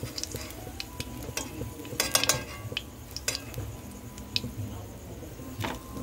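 A metal spatula scraping and clicking against a steel wok, with a cluster of clicks about two seconds in, over the faint sizzle of hot frying oil.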